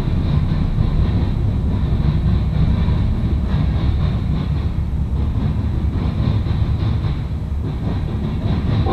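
Norfolk Southern mixed freight train's cars rolling past: a steady low rumble of wheels on rail with faint irregular clacks.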